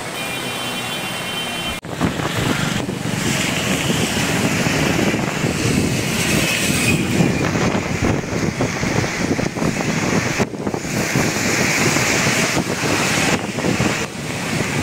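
Traffic on a rain-soaked road with wind buffeting the microphone: a rough, steady rushing noise.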